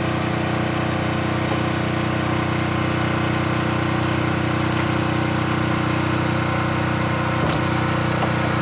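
An engine on an electrofishing boat running steadily at one constant speed, an even drone with no change in pitch. A single light knock sounds about seven and a half seconds in.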